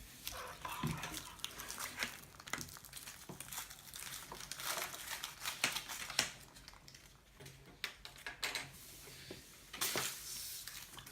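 Scattered rustling, crinkling and light clicks from chocolate-egg wrappers and plastic toy capsules being handled, in irregular short bursts.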